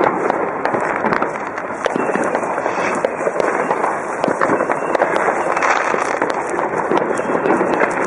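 Many fireworks and firecrackers going off at once: a dense, unbroken crackle of pops and sharp bangs overlapping one another.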